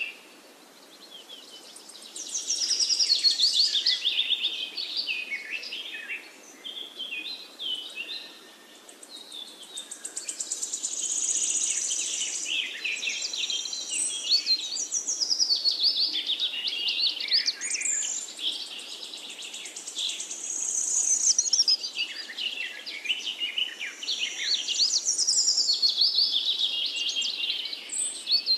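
Birds chirping and singing: many quick, high, sliding calls that come in loud spells a few seconds long, over a faint steady hiss of oil deep-frying in a wok.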